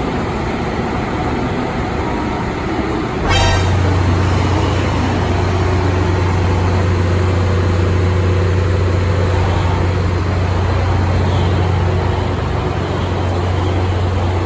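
A KiHa 183 series diesel railcar standing at the platform, its diesel running with a steady hum. About three seconds in, a short buzz is followed by a much stronger, steady low drone.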